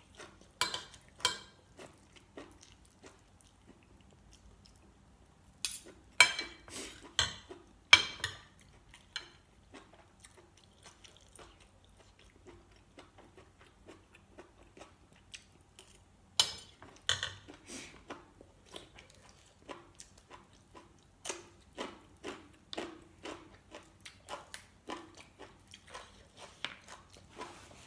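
Metal fork and spoon clinking and scraping on a plate, the sharpest strikes about six and eight seconds in and again past the middle, with close chewing between them. Near the end the chewing turns into a quick run of small crunches.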